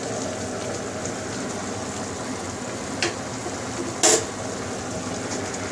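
A pot of sliced eggplant simmering on a gas stove: a steady hiss of cooking liquid. Two sharp knocks about a second apart cut through it around the middle, the second louder.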